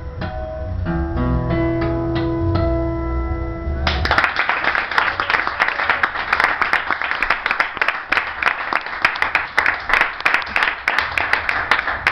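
Fingerpicked steel-string acoustic guitar playing its closing notes, left to ring. About four seconds in, a dense patter of hand clapping takes over: applause at the end of the piece.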